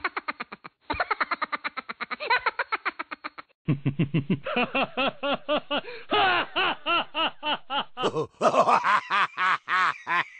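High-pitched laughter, a fast run of repeated 'ha-ha' pulses, about eight to ten a second, each rising and falling in pitch. It comes in several spliced-together bursts with short breaks between them.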